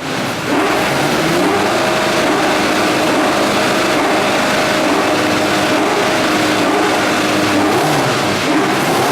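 Nissan R91CP's 3.5-litre twin-turbo V8 running steadily, its pitch holding nearly level with small rises and falls, after swelling up about half a second in.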